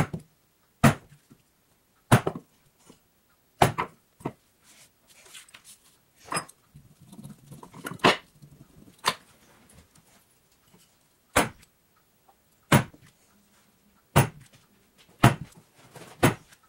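Steel stitching irons struck to punch stitch marks into veg-tan leather on a wooden bench: about a dozen sharp taps, irregularly spaced one to two seconds apart, with faint handling rustle between them.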